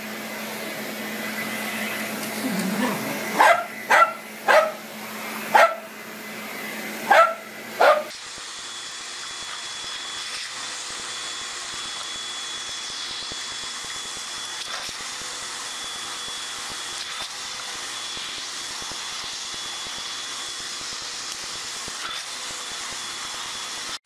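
A vacuum cleaner running while a dog barks at it, several sharp barks in quick succession between about three and seven seconds in. After a sudden change the vacuum runs on steadily with a thin high whine and no barking.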